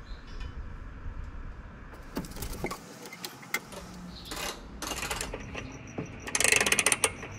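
Metal clinks and knocks of a steel front bumper guard and its bolts being fitted to a van's front end, with a quick run of rapid ratchet-wrench clicks near the end as a bolt is tightened.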